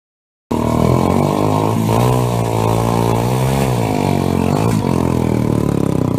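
Motorcycle engine being revved, its pitch rising and falling several times. It starts suddenly about half a second in and is loud throughout.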